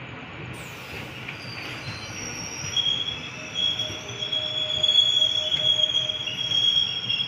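Passenger train wheels squealing on the rails, heard from inside the moving train over the steady running noise of the coaches. A high, steady squeal sets in about three seconds in and grows louder before easing near the end.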